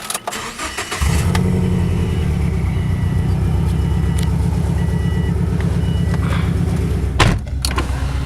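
A few clicks, then a car engine starts about a second in and settles into a steady, low, pulsing idle. A single sharp knock sounds near the end.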